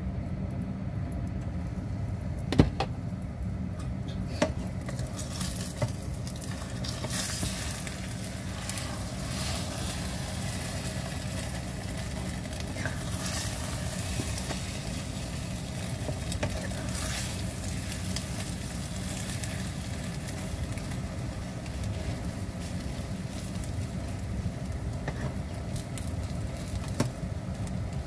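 Egg and shimeji mushroom omelet sizzling in oil in a non-stick wok. A sharp clack comes a few seconds in as the glass lid comes off, then a spatula scrapes and knocks as the omelet is flipped and pressed. A steady low hum runs underneath.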